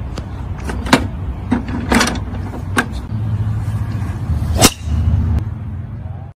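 A golf driver hits a teed ball with one sharp, loud crack about two-thirds of the way in. A few lighter clacks come before it as the bucket dispenser's lever is worked and a ball drops onto the tee. A steady low rumble runs underneath.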